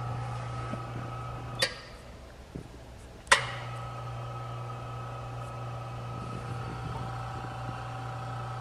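Micron Air Jet Sieve running with a steady hum. It cuts out with a click about one and a half seconds in and starts again with a louder click a couple of seconds later.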